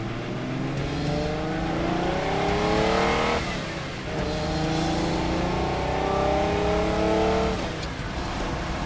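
1966 Ferrari 365P's V12 engine accelerating hard through the gears. The note rises steadily, drops at an upshift about three and a half seconds in, climbs again, and breaks at another shift near the end.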